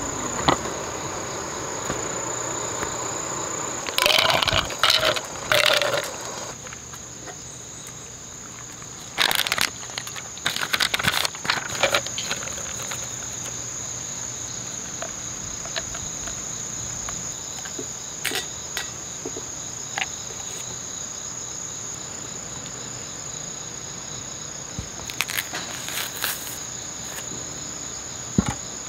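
A steady high-pitched insect drone runs throughout, broken by bursts of rustling and crinkling from hands handling paper and packaging. The loudest bursts come about four to six seconds in; another cluster comes around ten seconds in as a paper drip-coffee bag is opened and hung over a glass; a few shorter bursts come near the end.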